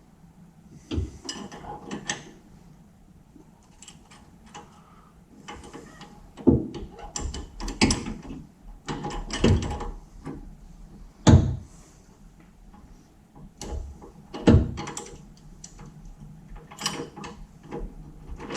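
Irregular metallic clunks, knocks and clicks as rear-end mounting hardware is worked into place by hand while the bottom bolt of a Ford 8.8 rear axle mount is fitted. The clunks come at uneven gaps, with the heaviest knocks spread through the middle of the sound.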